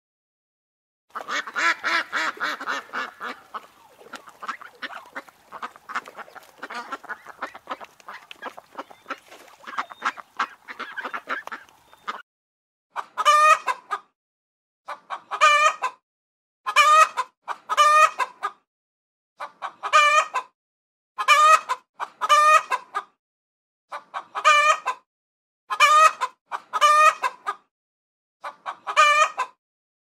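Chickens clucking: a dense stretch of quick, overlapping clucks for about the first ten seconds, then loud, drawn-out hen calls in short bursts, often two close together, repeating every couple of seconds.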